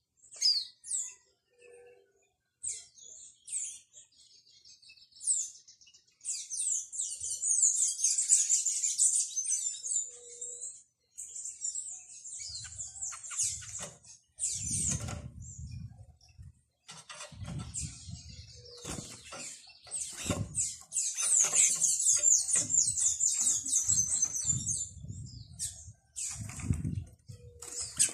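Crimson-backed tanagers and other small birds chirping and twittering in high, sharp notes, with bursts of dense twittering. From about halfway through, repeated low fluttering thumps of wingbeats come as birds fly in and out.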